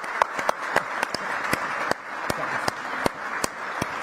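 Audience applauding: a dense patter of many hands, with a few nearby claps standing out sharply about three times a second.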